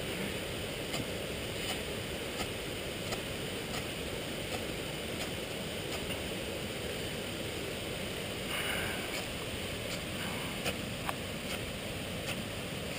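Repeated scrapes of a striker down a ferrocerium fire steel, faint and short, about one every two-thirds of a second with a longer scrape near the middle, over a steady background hiss.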